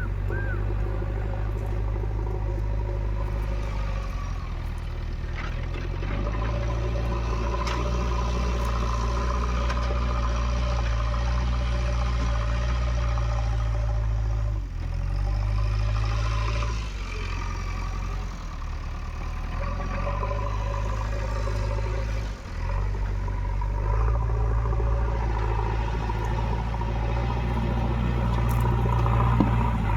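Diesel engine of a JCB 3DX backhoe loader running steadily at work, its note shifting and briefly dipping a few times as the load changes, with some light clatter.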